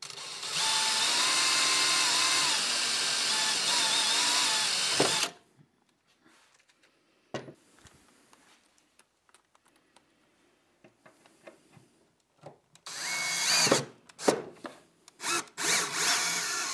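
Cordless drill running in one long burst of about five seconds, its pitch wavering as the trigger is eased. After a pause broken only by light knocks, a shorter run comes about 13 seconds in, then a few brief stop-start runs. This is the drilling and screwing that fixes brackets to a plywood overhead locker.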